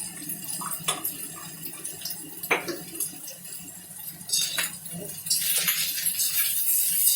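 A metal spatula clinking and scraping against a frying pan while stir-frying rice, with separate sharp knocks. A hissing noise comes in about five seconds in.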